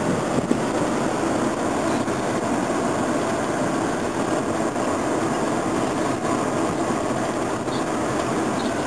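Steady engine and road noise of a moving patrol car, heard from inside the cabin, with a few faint clicks.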